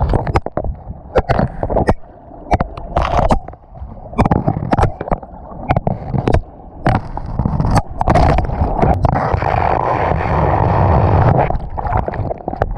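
Water rushing and gurgling through the AquaDuck water-coaster flume, heard close up by a GoPro being swept and tumbled along in it, with many irregular sharp knocks as the camera strikes the slide. From about eight seconds in the rush of water turns steadier.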